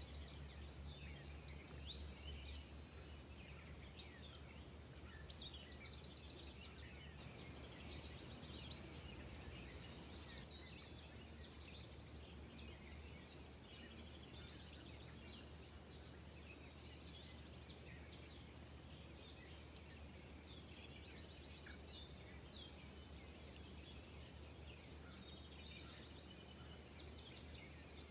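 Faint chorus of small birds chirping and trilling over a low steady hum.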